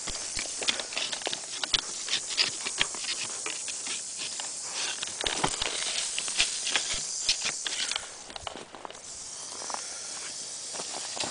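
Rattlesnake rattling under a rock: a steady, dry, high buzz that drops away about eight seconds in and then starts up again. Many sharp crunches and snaps of footsteps and twigs are mixed in.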